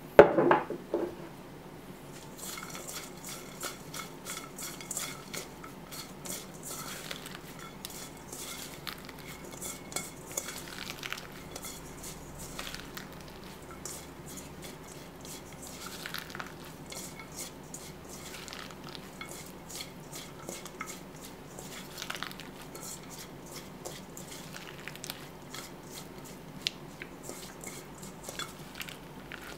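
Salted cucumber slices rubbed and tossed by hand in a stainless steel bowl, worked to draw out their water: many light clicks and wet slides against the metal. Right at the start, one loud ringing knock on the bowl.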